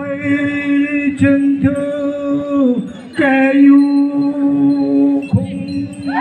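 Group of men chanting a Konyak folk song unaccompanied, in two long held notes: one lasting nearly three seconds, then a short break, then another of about two seconds.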